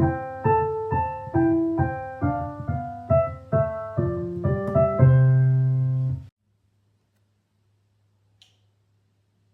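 Piano playing a slow melody over held chords, notes struck about twice a second, cutting off abruptly about six seconds in; after that only a faint low hum.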